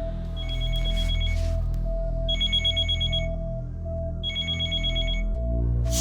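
Telephone ringing in trilling two-tone bursts, each about a second long and about two seconds apart, three in all, over a steady low background music score.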